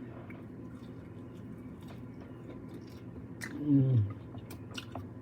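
A person chewing a mouthful of jerk rib meat, with faint wet mouth clicks, and a short "mmm" of pleasure with falling pitch about three and a half seconds in.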